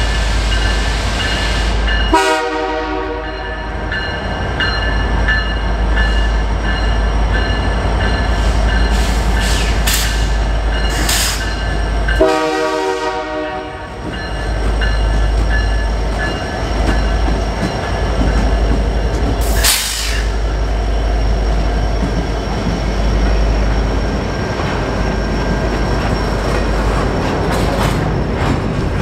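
Canadian Pacific freight train rolling past under a steady rumble, its locomotive horn sounding two long blasts, about two seconds in and again about twelve seconds in, with a few brief high squeals from the wheels.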